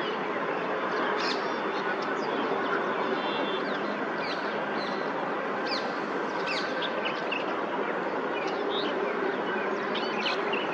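Many short chirps from small birds scattered throughout, over a steady background hiss.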